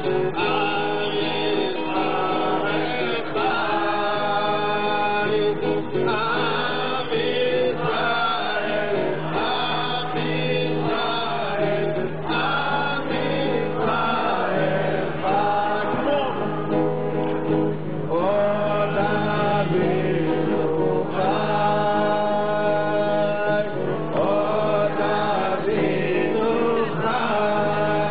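Music with a choir singing, over a steady low held tone.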